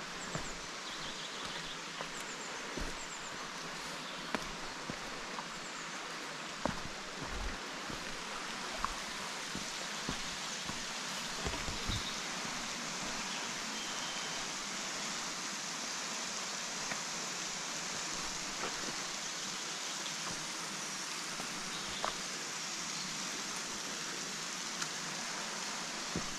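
Steady rush of falling water from a waterfall, with a few faint short clicks scattered through it.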